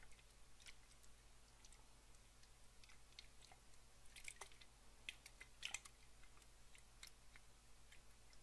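Water in close-up ASMR recording: faint, irregular small drips and wet clicks, with a few louder ones about halfway through.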